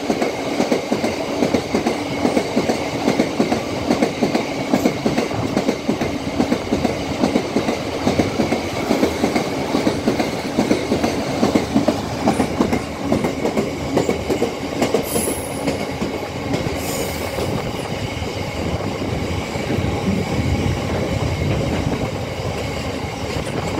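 Freight train of box wagons passing close at speed: a steady rumble with rapid clatter of wheels over the rail joints. Two short high squeals come about two-thirds of the way through.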